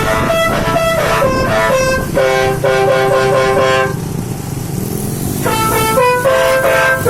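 Telolet bus horn: a multi-note air horn playing a quick melody of stepped tones, several sounding together. It breaks off for about a second and a half past the middle, leaving a low rising sound, then plays again.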